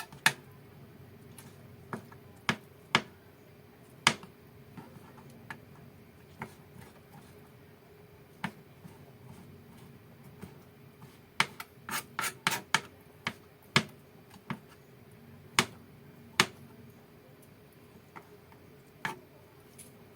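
Kitchen knife cutting soaked mushrooms on a cutting board. Irregular sharp taps of the blade on the board, with a quick run of several taps about twelve seconds in.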